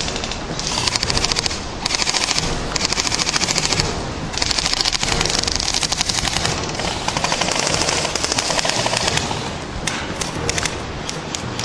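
Airsoft electric guns (AEGs) firing long full-auto bursts, a fast even rattle of BB shots, with short breaks between bursts.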